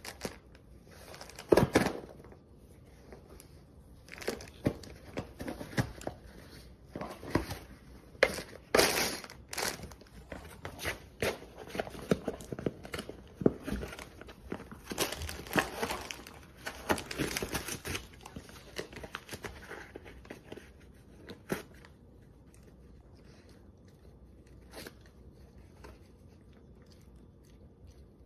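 A dog tearing apart a cardboard LEGO box and rustling the plastic bags of pieces: irregular bouts of ripping and crinkling, busiest in the middle and thinning out over the last several seconds.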